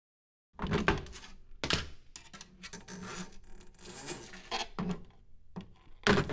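A run of knocks and thumps with scraping and rubbing between them, starting about half a second in. Another sharp knock comes near the end.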